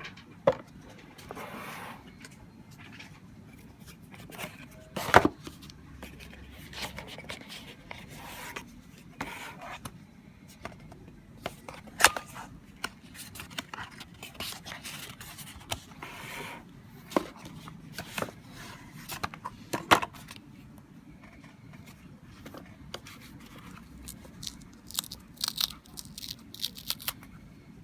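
Unboxing handling sounds: box and packaging rustling and scraping, with scattered sharp clicks and taps as parts are lifted and set down, and a quick run of small clicks near the end.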